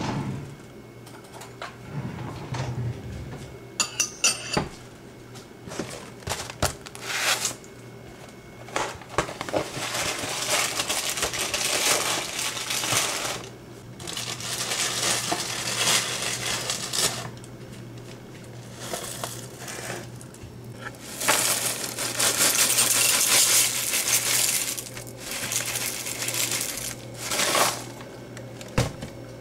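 Breakfast being put together by hand: a drawer opening and a metal spoon clinking against a ceramic bowl, one clink ringing briefly. Then several long stretches of rustling and pouring as a Frosted Flakes box and its liner are opened and the flakes are poured into the bowl.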